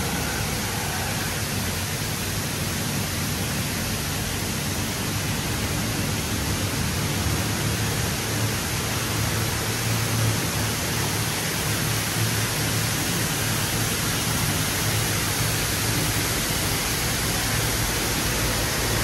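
WashBot Transformer 3XM in-bay automatic car wash spraying water over a car: a steady hiss of spray with a low hum underneath.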